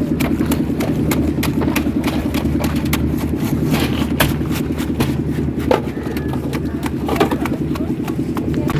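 An engine running steadily at a constant speed, with frequent sharp clicks and knocks over it.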